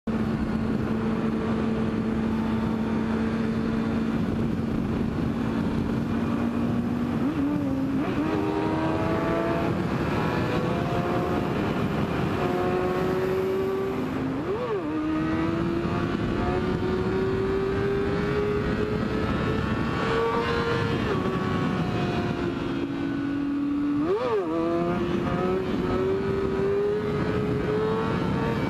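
Sportbike engine with steady wind rush on the helmet camera: it runs at a steady pitch, then accelerates from about seven seconds in, its pitch climbing through the gears, with two quick gear shifts where the revs spike and drop.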